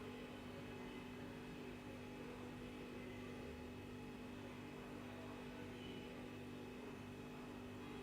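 A faint, steady hum made of a few held tones over a low hiss, unchanging throughout.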